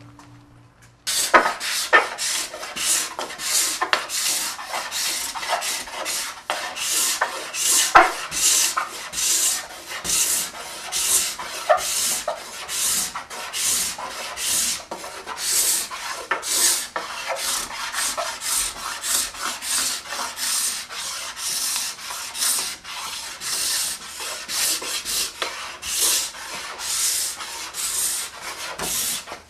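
Steel card scraper pushed across a madrone burl slab in quick repeated strokes, about two a second, each a dry rasping scrape as it lifts shavings. The scraping starts abruptly about a second in.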